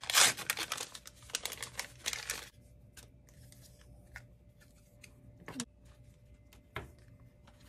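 A screen-protector accessory packet torn open, with about two and a half seconds of crinkling and tearing, then a few light taps as the cleaning cloth, alcohol prep pad and dust-removal stickers inside are pulled out and set down.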